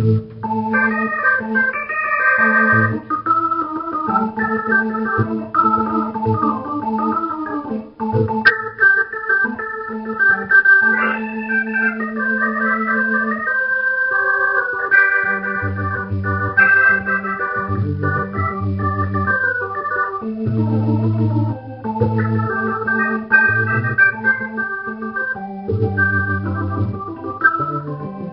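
Roland VR-09 combo keyboard playing a Hammond-style organ sound: a run of held and changing chords over low bass notes.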